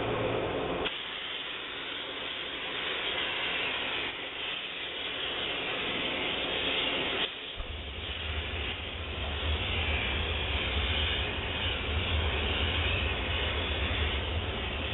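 Optima DMF steam cleaner running with a steady hiss of steam. A low hum from the machine stops about a second in and starts up again about seven seconds in, as steam begins pouring from the wand.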